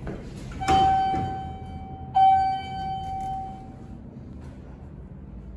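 Elevator arrival chime sounding twice, about a second and a half apart, each note ringing out and fading.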